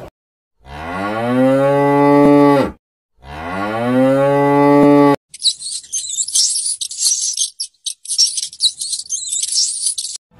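A cow mooing twice, two long lowing calls each about two seconds long that drop in pitch as they end. A run of high-pitched chirping follows for about five seconds.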